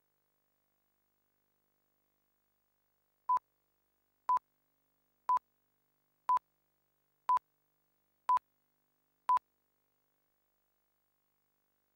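Video countdown-leader beeps: seven short, identical, high electronic beeps, one each second, starting about three seconds in.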